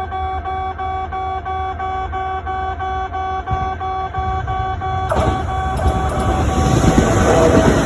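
Railway level-crossing alarm bell ringing a fast, evenly repeating ding. About five seconds in, the noise of an arriving Kintetsu train rises and grows louder under the bell.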